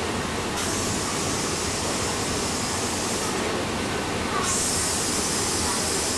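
Steam engine of a paddle steamer running slowly, its crankshaft turning, giving a steady mechanical rumble and clatter. A high hiss comes in about half a second in, drops out for about a second near the middle, and returns louder.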